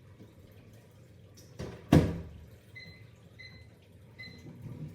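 Microwave oven door shut with a loud clunk about two seconds in, then three short keypad beeps as the time is set.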